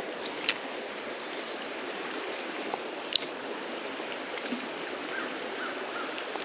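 Creek water flowing steadily over shallows, with two sharp clicks, one about half a second in and one about three seconds in.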